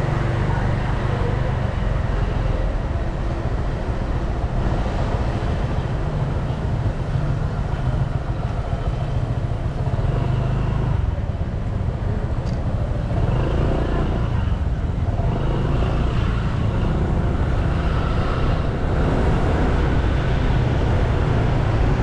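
Steady street traffic noise: cars and motorcycles running along a busy road, with faint voices of people in the background.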